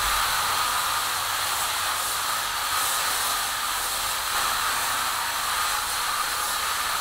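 Aerosol spray can hissing in one long, continuous spray.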